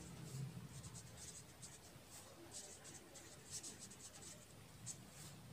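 Pen scratching on paper while writing out words by hand: faint, quick, irregular strokes.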